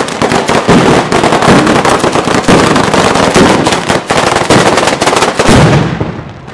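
A daytime batteria of firecrackers strung on overhead wires going off in a dense, rapid, continuous crackle of bangs. It dies away near the end.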